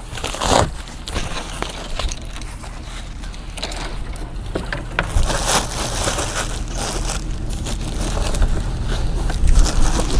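Plastic wrapping and packing foam crinkling and rustling as they are pulled off a mobility scooter's tiller, with irregular scrapes and crackles, busiest about half a second in and again near the end.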